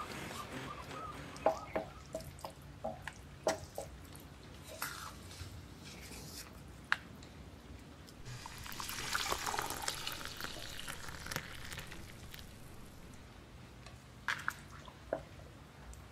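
Thick puréed soup in a pot giving scattered small plops and drips, with a soft hiss for a few seconds about halfway through.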